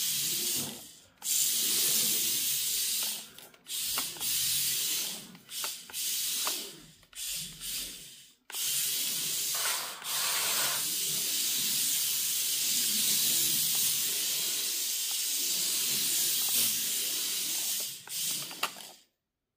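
WLtoys K969 mini drift RC car running and sliding on a rubber mat: a high rushing noise of its small electric motor, gears and tyres. It comes in short spurts with the throttle for the first several seconds, then holds for about ten seconds and cuts off near the end.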